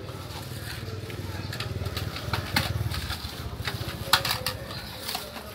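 A small engine running with a low, even throb that grows louder around the middle, with sharp clinks and knocks over it.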